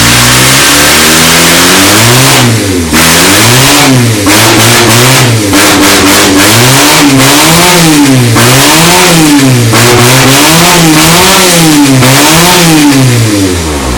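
Race car engine running very loud, held at a steady speed for about two seconds and then blipped over and over, its pitch rising and falling about once a second.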